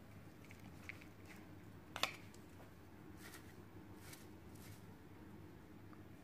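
Faint kitchen handling sounds of utensils working shredded food: a sharp click about two seconds in, a softer tick before it, then a few light brushing scrapes, over a quiet room hum.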